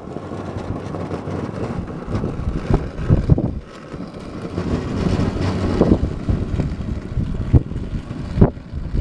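Wind buffeting the microphone outdoors: an irregular low rumble that rises and falls in gusts, with a few brief knocks.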